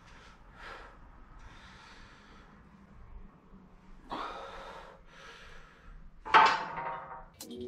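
A weightlifter's forceful breathing while pressing a barbell on an incline bench: a few short, sharp breaths, with a louder strained exhale about four seconds in and the loudest, partly voiced one near the end.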